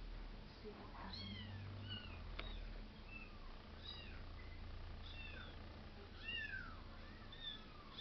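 A cat's short, high-pitched mews, about two a second, each a quick arching call, with a single faint click a couple of seconds in.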